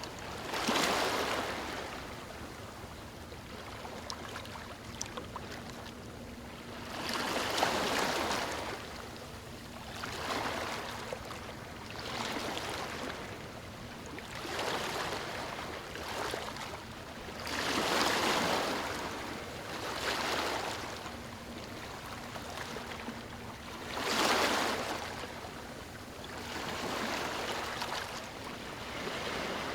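Moving water washing in swells that build and fade every few seconds, some noticeably louder than others, over a steady background rush.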